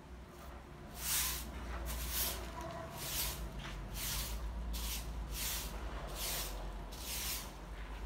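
Long-handled broom sweeping leaves across tiled paving: a steady run of short swishing strokes, about one or two a second.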